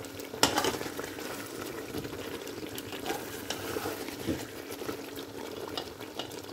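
Chicken and potato curry sizzling and bubbling in a pot as the masala fries in ghee, cooking down until the ghee rises to the top. A sharp knock of the ladle against the pot comes about half a second in, with a few lighter clicks later.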